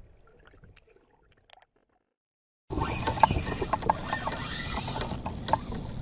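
Near silence, then about two and a half seconds in a spinning reel's drag starts clicking over a noisy hiss as a fish takes line off the reel.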